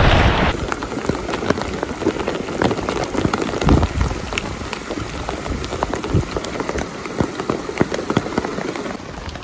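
Rain falling on a river, with many separate drop hits heard one by one over a steady hiss.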